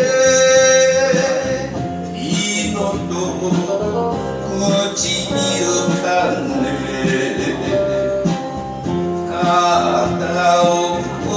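Enka music in an instrumental passage between sung lines, with melody instruments that include a plucked guitar.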